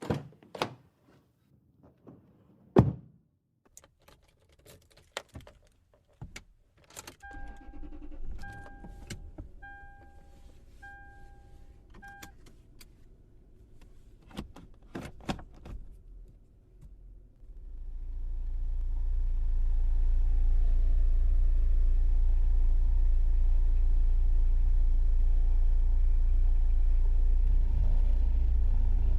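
Car sounds: keys and door clicking and thunking, then a car's warning chime beeping about five times on one tone. About two-thirds of the way in, a low engine rumble builds up and then runs steadily.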